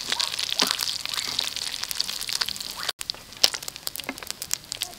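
Pieces of fish frying in hot oil in a pan, sizzling with frequent crackles and pops. The sound breaks off for an instant about three seconds in, then the crackling goes on.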